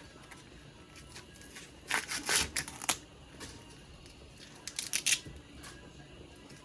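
Husks being ripped off an ear of corn: two bursts of crisp tearing and crackling, one about two seconds in and a shorter one about five seconds in.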